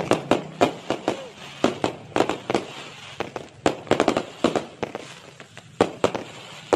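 An aerial fireworks display with shells bursting overhead: a rapid, uneven string of sharp bangs and cracks, about two or three a second.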